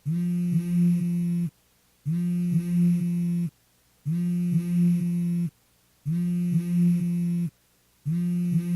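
A low, buzzing tone sound effect repeated in identical bursts, each about a second and a half long, coming back every two seconds with a short silence between.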